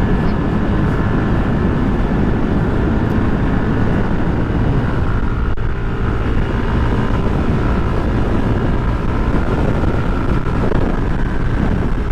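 Motorcycle cruising at a steady, moderate speed: the engine runs evenly under a constant rumble of wind on the microphone.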